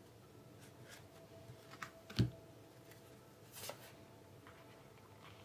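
Oracle cards being handled: a few soft taps and a short slide as a card is drawn from the deck and laid on the spread, the loudest tap about two seconds in.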